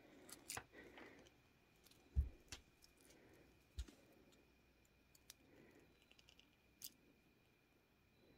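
Faint clicks and ticks of small jewelry pliers and glass beads being handled while the loose end of a bead strand is tightened, with a low thump a little over two seconds in and a smaller one near four seconds.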